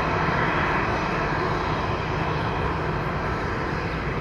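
Airbus A320-214 airliner's CFM56 turbofan engines running at low power as it taxis: a steady jet rush with a low hum underneath.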